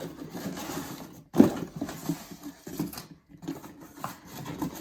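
Corelle dishes being handled out of their box, with light clicks and knocks of the pieces and one sharp knock about a second and a half in.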